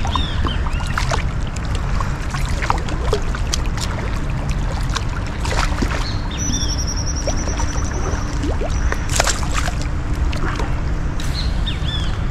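Hooked fish splashing and thrashing at the surface in shallow river water, many short splashes over a steady low rush of moving water. Birds chirp now and then, with a short high trill partway through.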